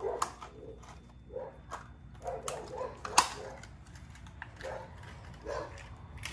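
M8 bolts and serrated nuts clicking together in a man's hands, with one sharp click about three seconds in. Short, pitched animal cries come again and again underneath.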